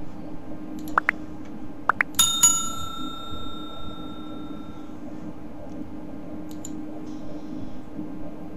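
Subscribe-button overlay sound effect: two pairs of short clicks, then a bell ding about two seconds in that rings on and fades over a few seconds. A steady low hum runs underneath.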